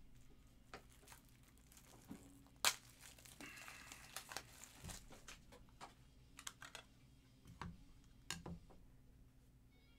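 Quiet, scattered light clicks and soft plastic crinkling from handling at a desk, with one sharper click about two and a half seconds in.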